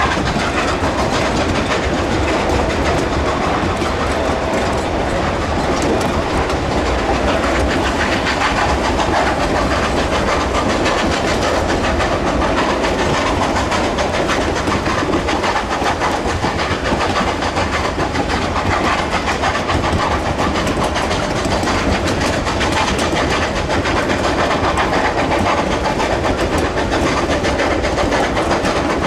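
Narrow-gauge freight train rolling, heard from an open car: a steady loud rumble with continuous clatter of steel wheels over the rail joints and the cars rattling.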